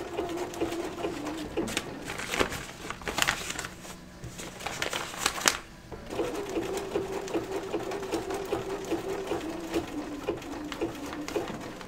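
Bernina sewing machine zigzag-stitching to couch yarn onto a quilt, its motor humming steadily with a fast stitch rhythm. It stops about a second in, and a few sharp clicks follow during the pause. It starts sewing again about six seconds in and runs until just before the end.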